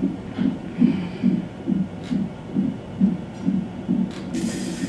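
Fetal heart monitor's Doppler speaker playing the baby's heartbeat: a steady, even pulse a little over two beats a second.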